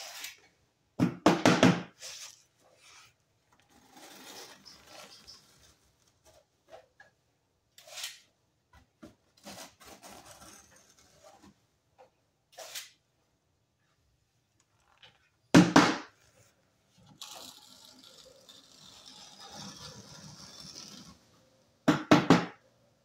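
Notched trowel scraping tile adhesive across a wall in several soft strokes, with three loud knocks, about a second in, past the middle and near the end.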